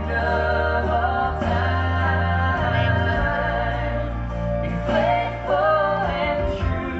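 A love song playing: a voice sings long, wavering held notes over a steady bass accompaniment.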